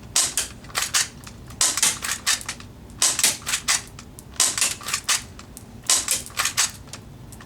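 HA109 P226C airsoft pistol being fired repeatedly: about six bursts of two to four sharp snapping clicks, roughly one burst a second.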